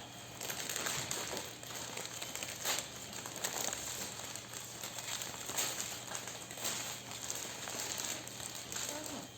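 Wrapping being unfolded and handled, rustling and crinkling in a continuous run of small crackles as the layers of packaging come off.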